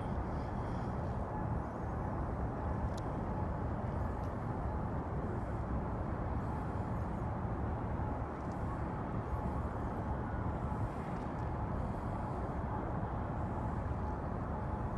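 Steady low rumble of harbour ambience across open water, with a faint steady hum above it.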